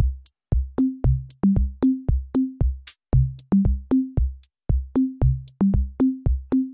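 Electronic background music: a steady programmed beat over a bouncing bass line of short low notes, about three a second.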